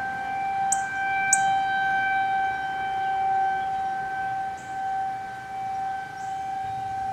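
Federal Signal 2001 outdoor warning sirens wailing on one steady pitch, the loudness slowly swelling and fading as the rotating heads sweep, sounding for an actual alert rather than a test. Two short high ticks come about a second in.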